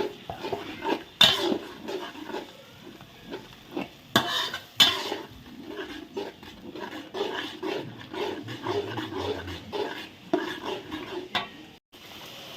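A ladle stirring a thick thokku masala in a large cooking pan after tamarind and sugar have gone in: repeated scraping strokes, with a few louder clanks against the pan.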